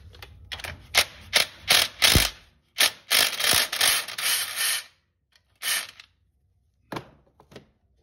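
Pliers clicking and scraping on a stubborn cotter pin in the castle nut of an ATV tie rod end. A run of sharp metallic clicks gives way to about two seconds of scraping and rattling, then a few more clicks.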